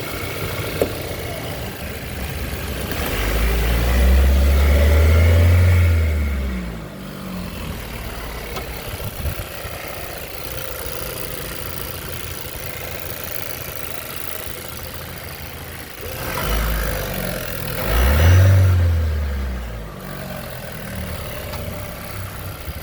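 Chevrolet Equinox's 1.5-litre turbocharged four-cylinder engine given gas twice, each time rising in pitch and falling back to a steady run, while it is checked for a noise that appeared after the car went into a ditch.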